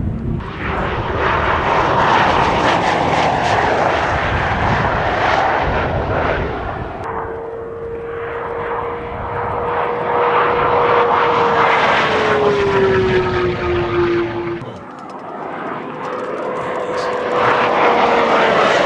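Sports cars passing at very high speed on an open highway: engine and rushing wind-and-tyre noise swell and fade. Midway the engine note holds and then drops in pitch as a car goes by, and a second engine note falls away near the end.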